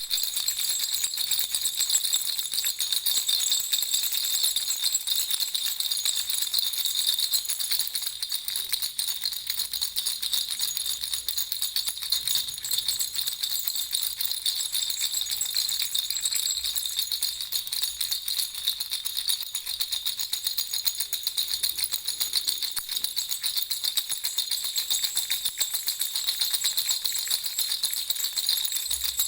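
Baby rattle (jhunjhuna) shaken without pause, a high, dense, jingling rattle of many rapid small clicks at an even level.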